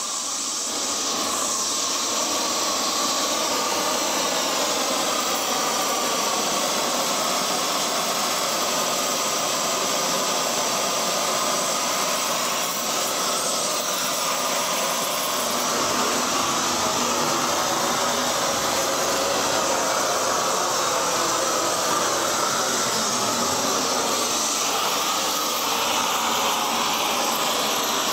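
Gas flame torch burning with a steady, even hiss, fading in at the start.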